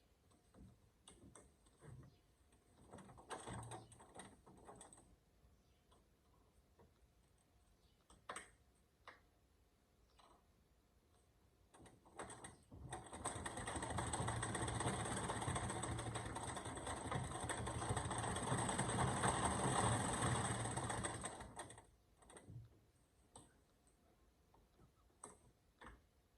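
Singer 319K sewing machine driven by a foot treadle: scattered clicks and knocks of the mechanism, then the machine runs steadily at speed for about eight seconds before stopping, followed by more light clicks.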